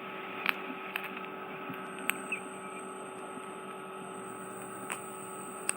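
Steady electrical hum of ear-cleaning equipment, with a few sharp clicks and crackles as an instrument works wax and dead skin out of a very narrow ear canal. A thin high whine joins the hum about two seconds in.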